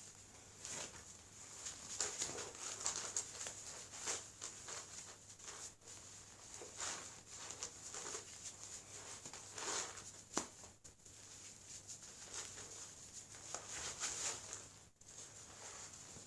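Faint, irregular rustling and rubbing of cloth as a bandage-wrapped glove is pulled onto a hand and the arm wraps are pulled over it, with one sharp tap about ten seconds in.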